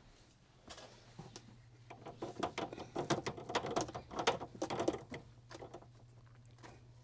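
Irregular plastic clicking and rattling from handling a pump garden sprayer and the pool shock jug, busiest in the middle, over a faint steady hum.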